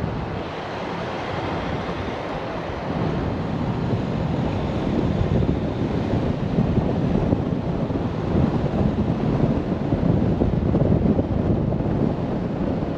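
Rushing wind and road noise of a vehicle on the move, buffeting the microphone, growing louder over the first few seconds as it picks up speed and then holding steady with small swells.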